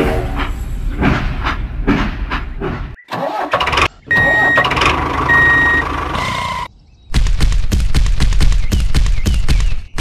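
Vehicle engine sound effects in short, abruptly cut pieces: an engine running, two short high beeps about halfway through, then a fast chugging engine with rapid knocking over a low rumble in the last three seconds.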